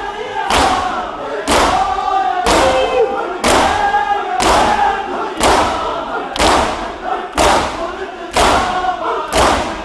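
A crowd of men doing matam, slapping their bare chests in unison about once a second. Between the slaps the crowd sings the noha, a mourning lament, together.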